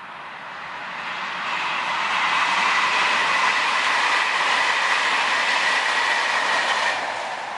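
A train passing: steady rail noise with a high whine that swells over the first couple of seconds, holds, then starts to fade near the end.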